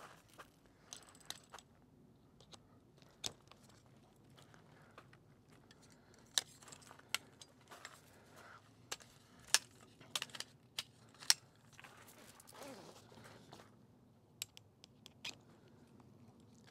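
Scattered sharp clicks and knocks with light rustling, as awning poles, clips and canvas are handled and fitted. The knocks come thickest and loudest in the middle.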